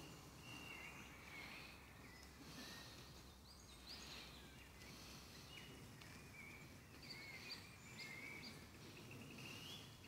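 Faint woodland birdsong: songbirds warbling and chirping in short phrases, with a run of quick higher chirps near the end, over a quiet, steady background.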